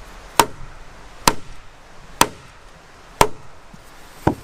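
Wooden mallet driving a wooden peg into a pegged joint between a pole rafter and the log beneath it: five sharp wooden knocks, about one a second.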